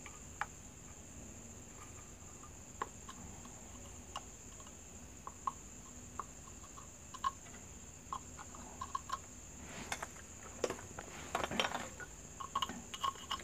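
Faint, scattered small clicks and taps of a soldering iron and hands working on the metal housing of an LED bulb while its two wires are desoldered from the LED board, growing more frequent near the end. A steady faint high-pitched whine runs underneath.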